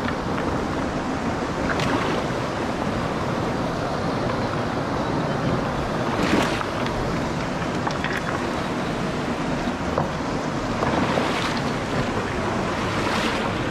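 Mountain river rushing steadily over a boulder rapid, with a few short knocks of footsteps on the stones.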